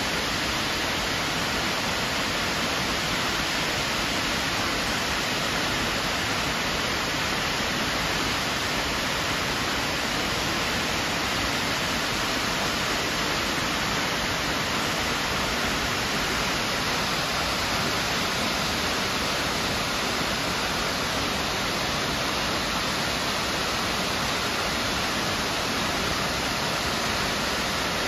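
Steady rush of Miners Falls, a tall waterfall plunging down a rock cliff into a gorge, an even roar with no change.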